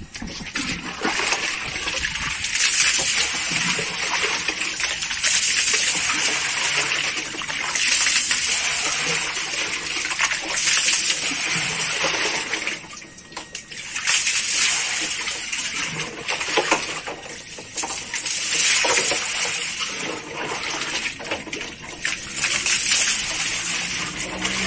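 Water splashing and sloshing in a plastic drum of catfish as a small pail and a hand are dipped in and worked through the water, with a short lull about halfway.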